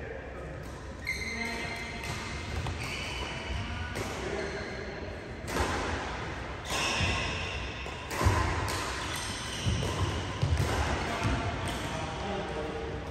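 Badminton rackets striking a shuttlecock in a doubles rally: a string of sharp hits, irregularly spaced and most of them in the second half. Short squeaks of court shoes on the synthetic mat and voices sound in the echoing hall.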